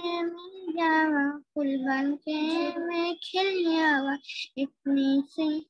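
A young boy singing a song unaccompanied, in short phrases of held notes with brief pauses between them.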